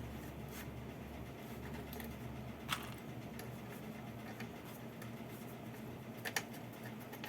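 A few faint clicks of small parts being handled, over a low steady hum.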